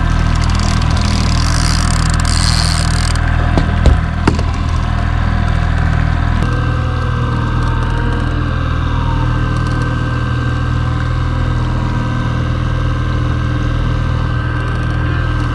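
Boat engine running steadily, with a few sharp knocks about four seconds in.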